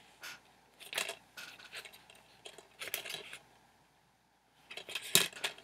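Hands handling a plastic DVD case and the discs in it: a scatter of light plastic clicks and rattles, pausing briefly, then a sharper click near the end.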